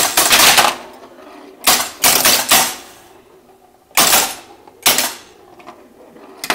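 County Fair electromechanical pinball machine's relays and stepper units chattering in loud bursts of rapid clicks, with quieter gaps between the bursts, as a game runs.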